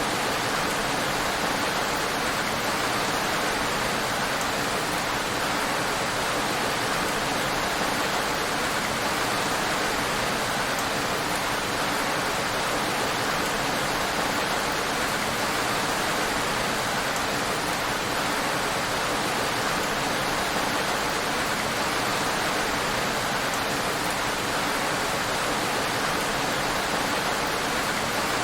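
Heavy rain falling on a road, a steady even hiss.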